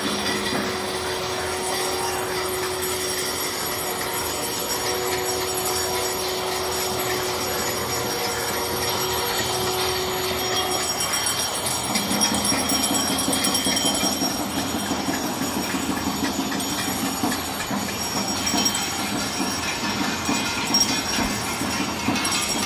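A steady din of many people making noise together, as in the 5 pm Janata Curfew salute of clapping, banging metal plates and ringing bells, with long held tones over it; one low held tone stops about halfway and a lower hum comes in.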